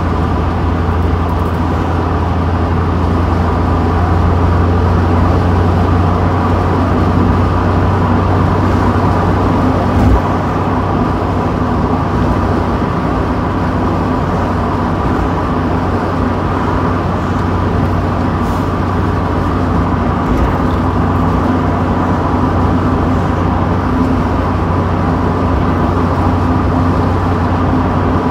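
Mazda Miata convertible driving with the top down: a steady low engine and road hum under open-air wind and tyre noise, with one brief thump about ten seconds in.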